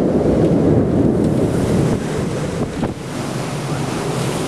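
Gusty wind buffeting the microphone, a heavy rumbling noise that is strongest in the first couple of seconds and then eases to a steadier rush.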